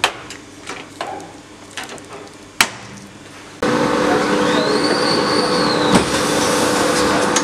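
Sharp clicks and knocks of hands working a screen-printing press. Then, suddenly louder, a semi-automatic screen-printing press runs with a steady hum. Its squeegee carriage drive whines up and then down in pitch once as it makes a print stroke, with a knock near the end of the stroke.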